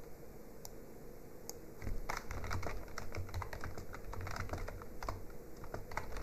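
Typing on a computer keyboard: a few scattered keystrokes, then a quick, steady run of key clicks from about two seconds in as a search phrase is typed.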